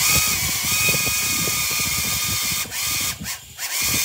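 Blade 230S V2 helicopter's brushless tail motor spinning a tail rotor that is mounted backwards, making a steady whine over a rough, rattling buzz. It dips briefly twice around three seconds in, then picks back up. A backwards tail blade gives this sound that "doesn't sound right at all", along with very poor tail holding.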